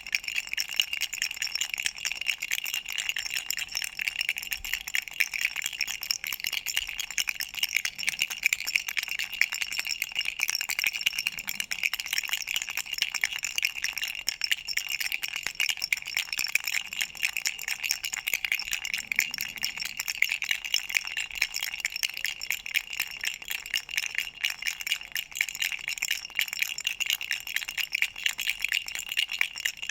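Duck-shaped baby rattle shaken without pause: a dense, continuous rattling with a bright, high jingle.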